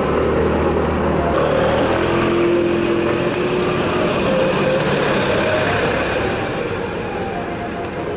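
Garbage truck's rear compactor running under load as it draws in and crushes a big load of bagged rubbish, the engine running steadily with several squealing tones over it. The squeal is the abnormal compaction noise that this truck's packer makes.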